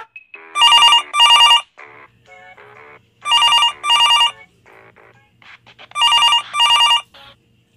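Phone ringing with a classic telephone double ring: three pairs of short electronic rings, each pair about two and a half seconds after the last.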